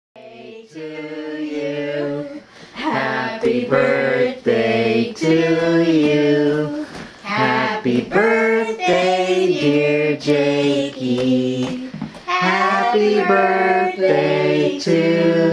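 Voices singing a song in held notes, phrase after phrase, with short breaks between phrases.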